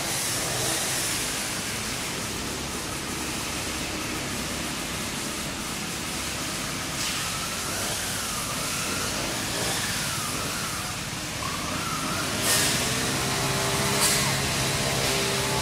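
Steady hiss of a motor vehicle's engine and road noise, with an engine hum that fades in the middle and returns near the end. Two sharp clicks come near the end.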